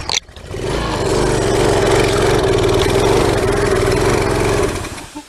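Briggs & Stratton small engine on a pressure washer catching on a shot of ether, running steadily for about four seconds, then dying out near the end. It fires on the starting fluid but won't keep running, which the owner puts down to old gasoline, and perhaps debris, still in the fuel system.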